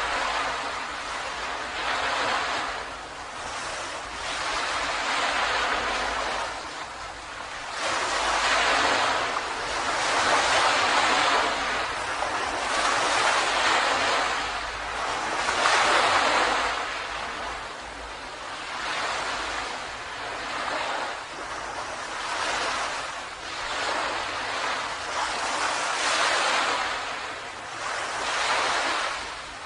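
Ocean waves breaking and washing on a beach, swelling and fading in a repeating rhythm every couple of seconds, loudest in the middle.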